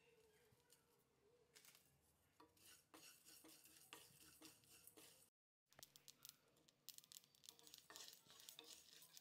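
Wooden spatula stirring dry lentils, coriander seeds and sesame seeds while they dry-roast in a nonstick pan: faint, irregular rattling and scraping of the seeds. The sound cuts out briefly about five seconds in.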